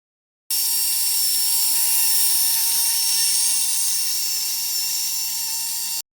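Brass N scale Shay model locomotive running: a steady, high-pitched whine from its motor and gear drive over a hiss, cutting in about half a second in and stopping abruptly just before the end.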